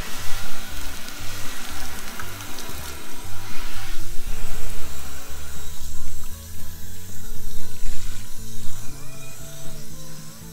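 Garden hose spray nozzle hissing as water is sprayed over wet-sanded gelcoat to rinse it, strongest in the first few seconds and weaker after. Background music with a steady bass line plays underneath.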